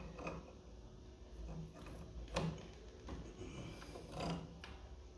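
Faint clicks and scrapes of a spanner tightening a flywheel puller screwed onto a scooter's magneto flywheel, with a few short knocks standing out about two and a half and four seconds in.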